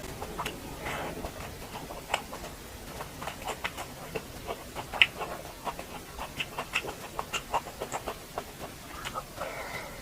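Close-miked chewing and lip smacking: a quick, irregular run of wet mouth clicks, with softer breathy sounds near the start and near the end.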